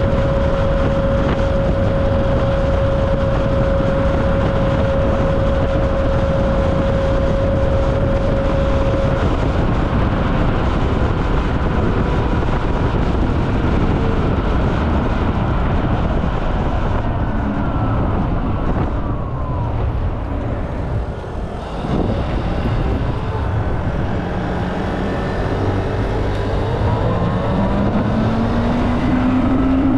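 Riding a Super Soco TC Max electric motorcycle: wind and road noise rushing over the GoPro's microphone, with a faint motor whine. The whine slides down and the rush eases as the bike slows about 20 seconds in, then rises again as it speeds up near the end.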